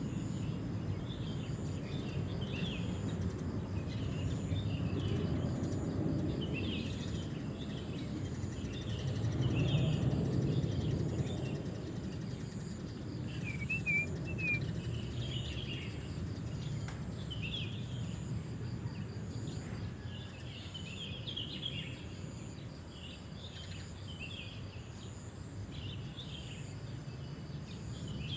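Birds chirping in short calls about once a second over a steady high-pitched drone of crickets, with a low background rumble that swells about ten seconds in.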